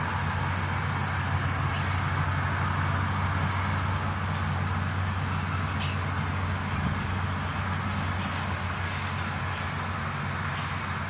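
Heavy road-construction machinery running steadily, a constant low engine hum with faint clicks and a thin high whine over it.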